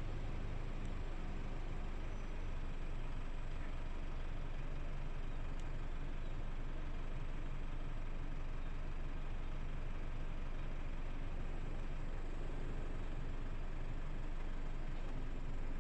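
Twin-engine turboprop airliner taking off, its engines at takeoff power heard from the far end of the runway as a steady low drone with hiss.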